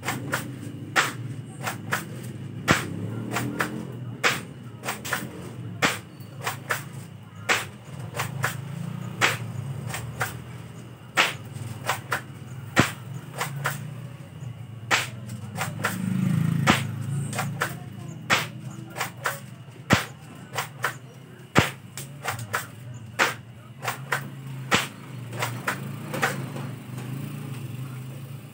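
Spring-powered airsoft pump shotgun (an M690 replica of the Mossberg 590A1) being pumped and fired again and again: a long run of sharp clacks and snaps, about one or two a second, over a steady low rumble.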